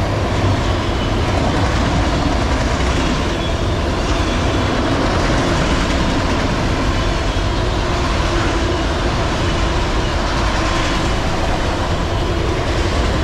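Freight train of autorack cars rolling past fast and close: a loud, steady noise of steel wheels on rail.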